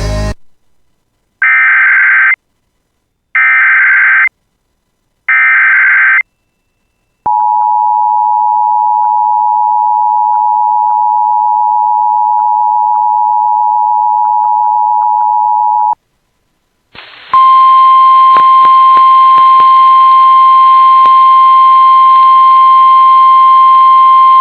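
Emergency Alert System tones: three short bursts of SAME header data warble, then the two-tone EAS attention signal held for about nine seconds. After a short gap comes the single steady NOAA Weather Radio warning alarm tone over radio hiss and clicks of static, leading into a new tornado warning.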